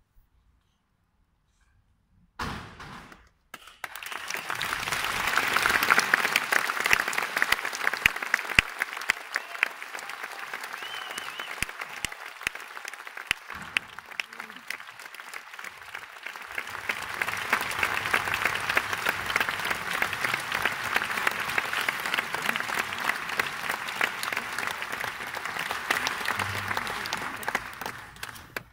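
Theatre audience applauding: a dense crackle of clapping that starts a few seconds in, eases slightly midway, swells again and dies away near the end.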